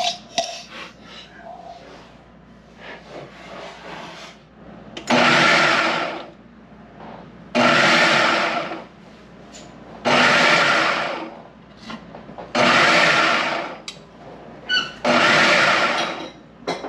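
Ninja food processor run in five short pulses, each about a second and a half long and spaced about two and a half seconds apart, chopping raw gar fish with sticky cooked rice into small pieces. Before the first pulse there are a few light clicks and knocks from handling the machine.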